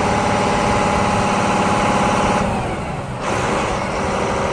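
Volvo A40F articulated dump truck's diesel engine running, with a steady high whine over the engine note while its dump body is raised and lowered by hydraulics. About two and a half seconds in the sound briefly thins and drops, then picks up again.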